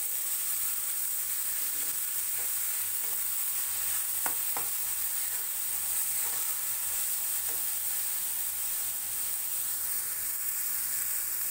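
Chopped tomatoes sizzling in hot oil with onion masala in a steel kadhai, stirred with a steel spatula scraping the pan. Two sharp clicks of the spatula on the pan come a little after four seconds in.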